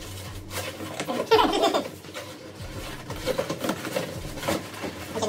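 Cardboard shipping box being opened and handled, with scraping of its flaps and rustling of paper, and brief low voices, the loudest about a second in.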